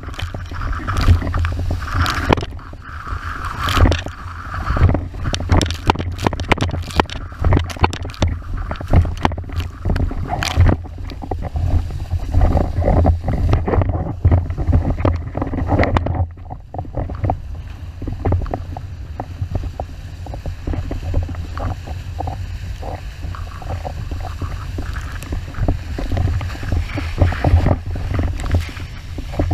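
Wind rumbling on the microphone of an action camera mounted on the rig, over water rushing and spraying past an 81-litre wave windsurf board as it planes fast across chop. The hull slaps the waves in frequent sharp knocks.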